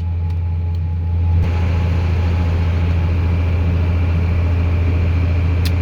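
Farm tractor engine running steadily under load, a constant low drone heard from inside the cab, with a slight change in tone about a second and a half in.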